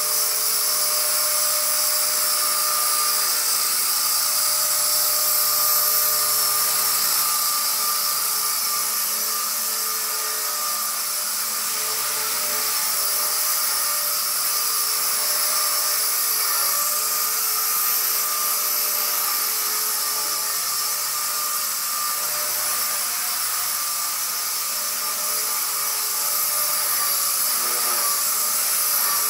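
Walkera V120D02S RC helicopter in flight: its electric motor and rotor blades make a steady high-pitched whine, its pitch shifting slightly as the helicopter hovers and manoeuvres.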